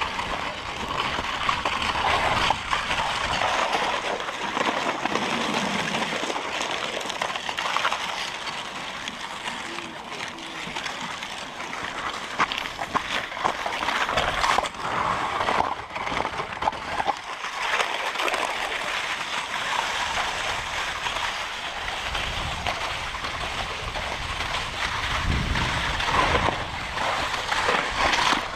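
Wooden dog sled's runners sliding and scraping over wet, slushy snow: a steady hiss that swells and fades, with a few knocks from the sled frame and some low rumbling near the end.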